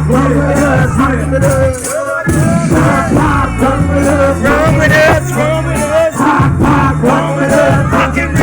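Live hip-hop performance: a loud backing track with a deep bassline that changes in steps about every second, and a singing voice over it.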